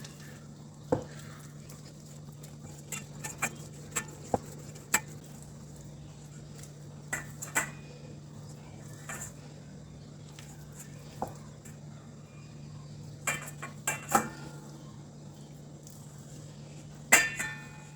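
A spoon clinking and knocking against a bowl at irregular moments while cake batter is stirred, with the loudest cluster of knocks near the end.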